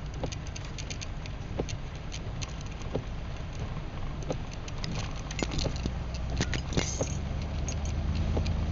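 Rain pattering on a moving car, scattered drops ticking on the windshield and roof over the steady low rumble and hiss of the car driving on a wet road, heard from inside the cabin.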